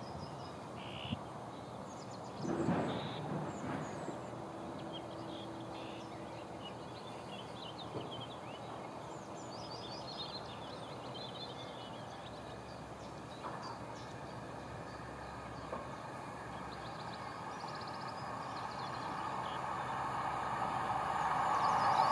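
Northern Class 156 Sprinter diesel multiple unit approaching on the near track, its engine and wheel noise growing steadily louder over the last few seconds. Birds chirp throughout, and there is a brief bump about three seconds in.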